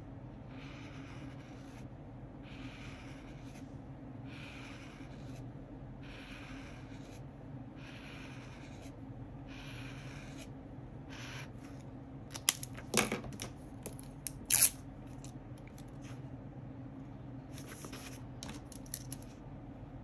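Pen strokes scratching across paper, one about every second, as lines of a book are marked up, over a low steady hum. Past the middle come a few loud sharp clicks, and a few lighter ticks near the end.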